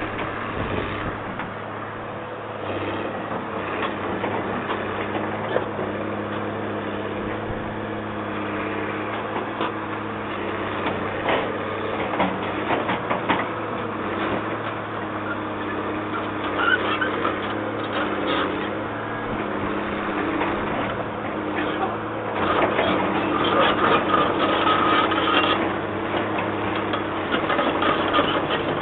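Excavator engine running steadily, with scattered sharp knocks and a louder stretch about two-thirds of the way through.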